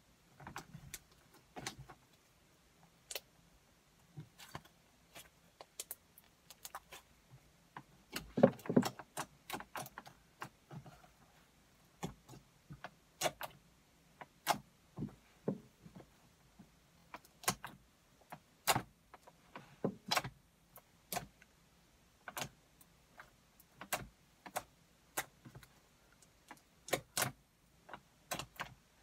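Purple slime being kneaded and squeezed by hand, giving irregular sharp clicks and pops as air pockets in it burst, with a longer, louder stretch of crackling about eight seconds in.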